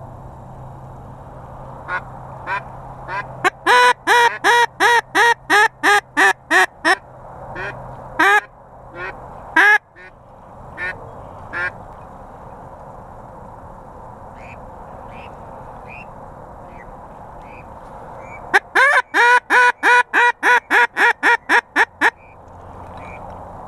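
Loud mallard-style quacking in two fast, evenly spaced runs of about ten to twelve quacks, the first a few seconds in and the second near the end, with a handful of single quacks in between.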